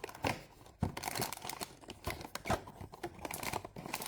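Blind-box packaging being handled and opened: irregular crinkling and tearing with scattered sharp clicks and taps.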